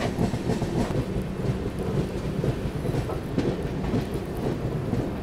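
Steady low rumble of the Anand Vihar–Lucknow Double Decker Express running on the rails at about 40–50 km/h, heard from on board.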